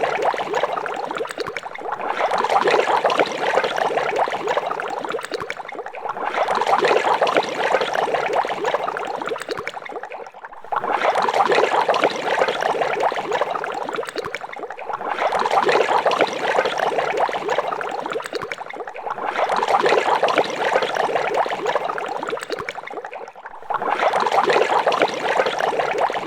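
Water boiling in a large pot: a dense, continuous bubbling that briefly dips in loudness about every four seconds.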